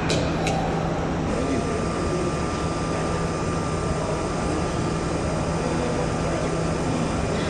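Steady hum and hiss of automated assembly machinery on a production line, with a short sharp click and hiss at the start. A thin steady whine joins about a second in.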